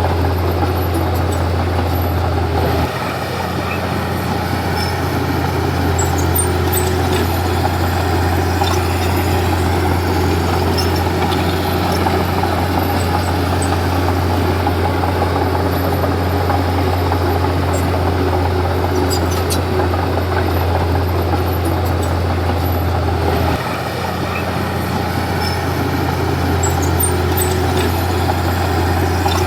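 Komatsu D31P bulldozer's diesel engine running steadily while working. The low engine note shifts about three seconds in and changes again a few seconds before the end.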